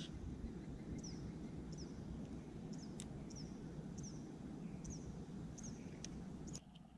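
A bird calling over and over, a short high chirp falling in pitch about every two-thirds of a second, over a low steady outdoor rumble, with a few sharp clicks. The sound drops off abruptly near the end.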